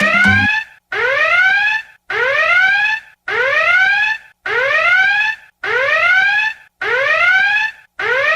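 Emergency broadcast alert tone: a loud electronic whoop alarm repeating about eight times, each a rising sweep just under a second long with a short gap between. It is the attention signal that breaks into programming ahead of an emergency announcement.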